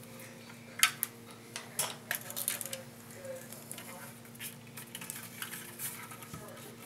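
Light metallic clicks and clinks at irregular intervals as small computer hardware (screws, a hard drive and its metal drive cage) is handled.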